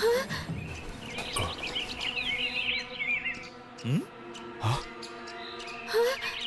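Animated-film soundtrack: soft background music with held chords, a flurry of bird chirps from about one to three seconds in, and a few short rising swoop effects.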